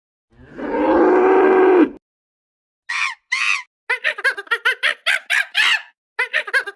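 A long, rough animal call lasting about a second and a half, then, after a short pause, a rapid run of short domestic fowl calls, about four a second.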